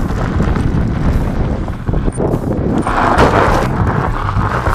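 Wind buffeting the microphone of a bike-mounted camera, with the bicycle's tyres rolling over a gravel track; the rushing noise swells about three seconds in.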